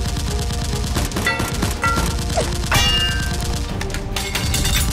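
Rapid gunfire sound effects, shot after shot in quick bursts, over a background action music track.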